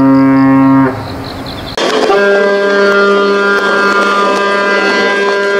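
Two Mogami-class frigate ship's horns from separate recordings: JS Mikuma's deep, steady blast cuts off about a second in. After a short stretch of background noise, JS Agano's higher-pitched horn starts near two seconds and holds steady.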